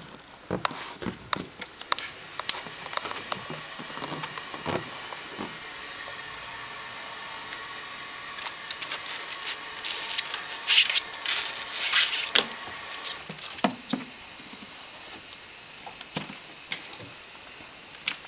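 Irregular taps, knocks and scrapes on a sweet tub as a hand handles it and a small furry pet noses at it, with a cluster of louder clicks about two-thirds of the way through, over a faint steady hum.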